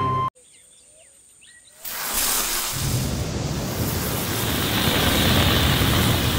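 Cartoon sound effect of a soda bottle jetting through the air: a loud, steady rushing noise that starts about two seconds in and swells. Before it come faint chirps over near-quiet.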